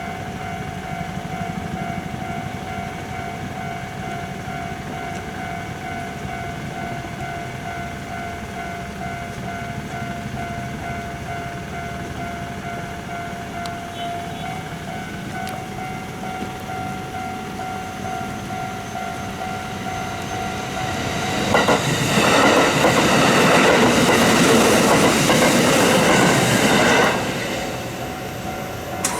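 Japanese level-crossing warning bell ringing its steady electronic 'kan-kan' tone. About 21 seconds in, a train passes through the crossing loudly for about six seconds with wheels clattering over the rails, then fades.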